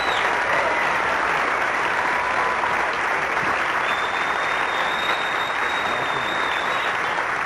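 Theatre audience applauding steadily at a curtain call. Partway through, a long, high, steady whistle sounds over the clapping for about three seconds.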